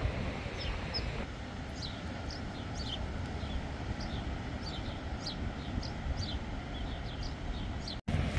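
Small birds chirping, short falling chirps several times a second, over a steady low background rumble.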